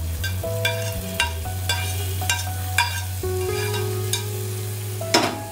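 Hot ghee with fried cashews, chironji nuts and raisins sizzling as it is poured onto payasam.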